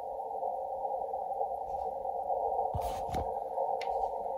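Kenwood HF transceiver's receiver audio: a steady band-noise hiss heard through a narrow 500 Hz filter as the VFO is tuned down the 40 m band. A couple of soft knocks come about three seconds in.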